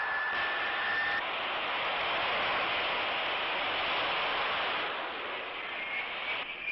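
Aircraft turbine engines running: a steady rushing roar with a high whine that rises slightly in pitch, dropping out about a second in and returning near the end.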